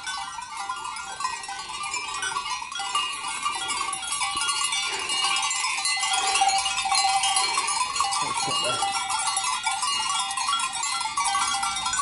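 Many bells on a grazing flock of Alpine sheep ringing and clanking at once, a dense tinkling that grows louder from about halfway through.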